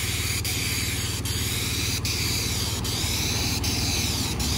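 Asphalt sealer spraying from a hand wand: a steady hiss over the low, even drone of the sealing rig's pump engine, with a faint tick repeating a little more often than once a second. A passing vehicle's low rumble rises near the end.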